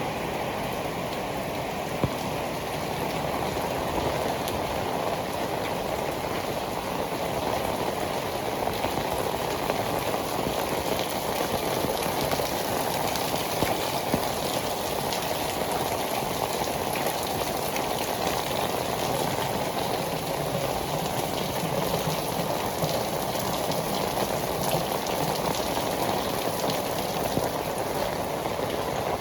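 Heavy tropical rain pouring steadily onto pavement, a dense hiss of countless drops with a few sharper single hits standing out.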